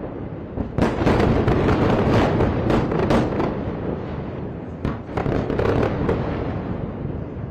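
Rapid crackling and popping of small secondary explosions from a burning strike site, over a low rumble. The crackling comes in two bursts, a dense one about a second in and a shorter one around five seconds in.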